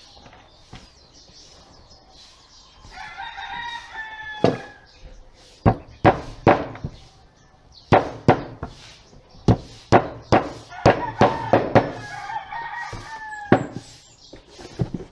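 Hammer driving nails into a wooden kitchen drawer: a dozen or so sharp blows in uneven groups. A rooster crows twice in the background, once just before the hammering starts and once near the end.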